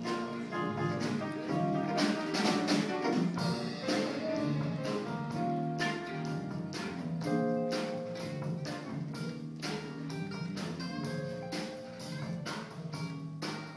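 Jazz ensemble playing live, with saxophones, brass, archtop guitar and piano holding chords and lines over a steady beat of drum strokes.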